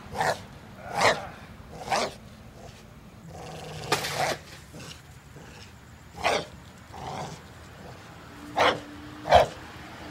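Pit bull barking in short, separate barks, about one a second at first, then more spread out, with a longer, drawn-out bark about four seconds in.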